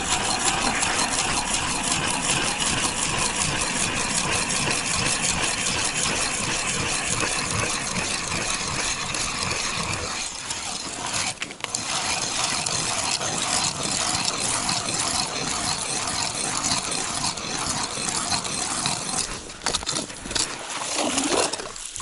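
Hand-cranked ice auger drilling through river ice under snow, its blades grinding steadily with each turn of the brace. There is a short pause about halfway, and near the end the auger is lifted out of the hole.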